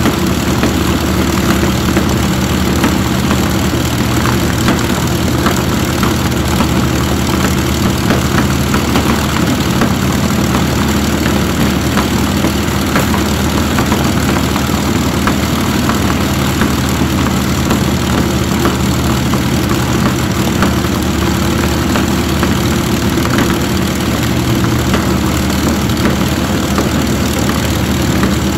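Rolls-Royce Merlin V12 aero engine on a test stand, running steadily at idle with its propeller turning; the pitch and loudness hold even, with no revving.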